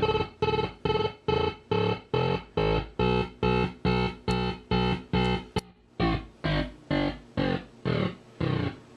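Homemade sound-effects synth pulsing a buzzy electronic tone about two and a half times a second. About six seconds in, the pulses turn rougher, each one sweeping up in pitch.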